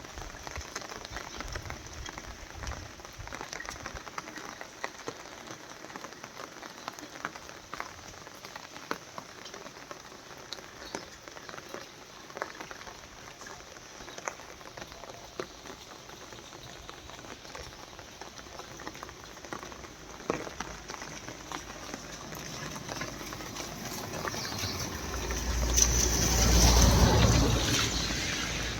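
Rain falling, a steady hiss with scattered drips. Near the end a louder rush with a deep rumble swells up and dies away.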